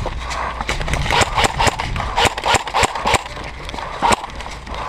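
Footsteps of airsoft players moving off quickly over hard ground: an irregular series of sharp steps and knocks, a few a second.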